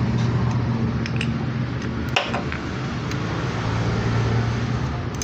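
Steady low mechanical hum from a running engine or machine, with a sharp click about two seconds in and a few faint ticks.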